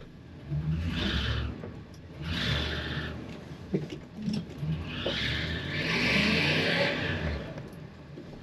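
Ford E350 step van's engine revving in three surges, heard from inside the cab, each rev joined by a hiss of the tyres. The van barely moves: its wheels are fighting for traction on ice and mud.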